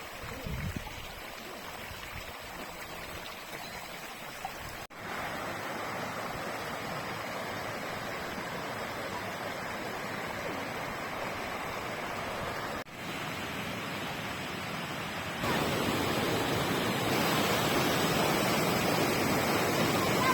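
Rushing water of a forest stream and waterfall, a steady rush that breaks off for an instant twice at clip joins and grows louder over the last few seconds.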